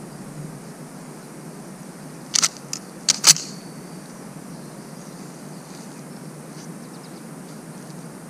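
Sharp metallic clacks of an M14 rifle's action being worked by hand: the operating rod and bolt are cycled out of the stock, a quick run of clicks about two to three seconds in ending in a ringing snap as the bolt closes.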